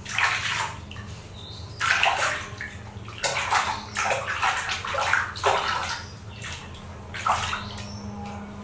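Water sloshing and splashing in a plastic basin as hands scoop and rub water over a baby monkey being bathed, in a run of irregular splashes.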